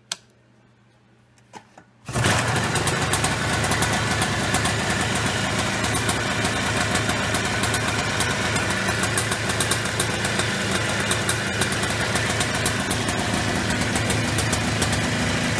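After a few faint clicks, the Polaris Trail Boss 250's two-stroke single-cylinder engine starts about two seconds in and settles straight into a steady idle. The idle is smooth and healthy sounding, the sign that the freshly replaced crankcase seals have cured the air leak.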